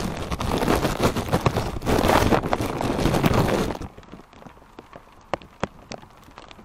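Wind gusting over a plastic-bag-covered camera microphone, with the bag rustling. The wind drops about four seconds in, leaving a lull with a few sharp ticks that fit windblown rain hitting the bag.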